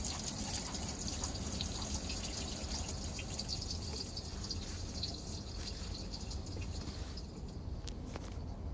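Water trickling and dripping out of a boat engine's opened drain plug holes, the flow easing off toward the end.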